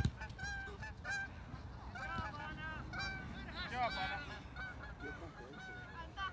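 A flock of geese honking: many short, overlapping calls repeated throughout.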